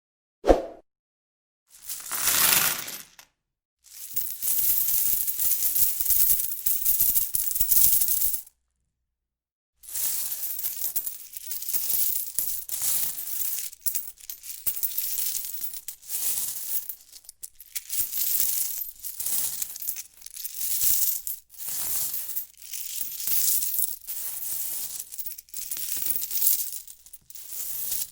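Metal coins jingling and clinking. A single clink comes first, then a brief rattle, a few seconds of continuous jingling, a short pause, and repeated bursts of coins being shaken, about one a second.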